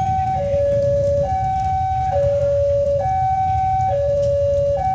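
Railway level-crossing warning alarm sounding a steady two-tone high–low signal, switching pitch about once a second, which warns that a train is approaching. A steady low rumble runs underneath.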